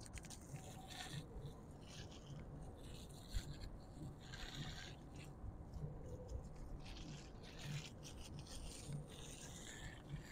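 Faint hiss of a hose water jet spraying the finned condenser coil of a Carrier 30XA chiller, rinsing dust out of the coil. The hiss comes and goes every second or two.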